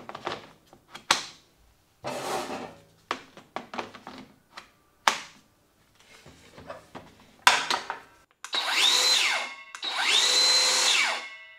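Two batteries clicked and slid into a Skil PWRCORE 20 XP 2x20V brushless rear-handle circular saw with plastic clatter. The saw is then run free twice, each time a quick rising whine that holds for about a second and drops away as the blade stops fast.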